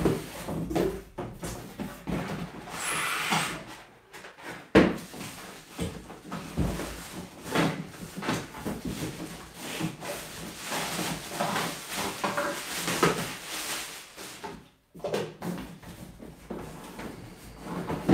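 Packaging being handled while an espresso machine is lifted out of its cardboard box: plastic wrap and foam rustling and scraping, with scattered knocks and one sharp knock about five seconds in.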